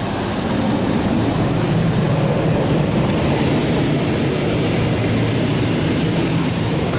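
NuStar Soft Touch Plus car wash high-pressure rinse spraying water over a truck as the wash arch passes over the top: a loud, steady hiss of water spray.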